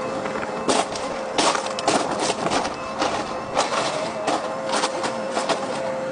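An excavator demolishing a house: a run of sharp cracks and crashes of breaking debris over a steady mechanical hum.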